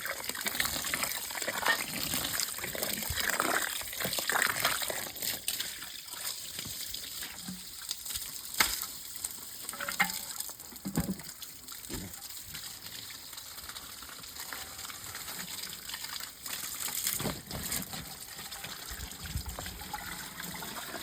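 Water splashing and gushing, with a few sharp knocks between about eight and twelve seconds in.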